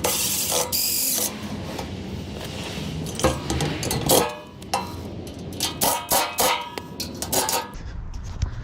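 A power tool runs in a short burst, then metal scrap clanks and knocks repeatedly as it is worked apart.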